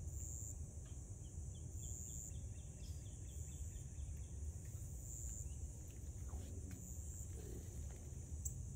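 Insects trilling steadily in a high, thin band that swells louder every second or two, over a low background rumble. A brief run of faint quick ticks comes about a second in.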